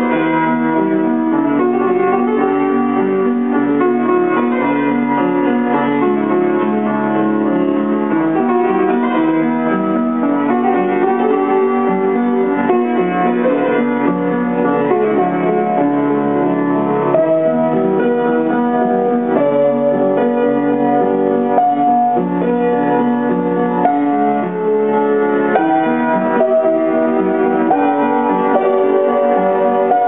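Upright piano played solo, with a continuous flow of chords and melody notes.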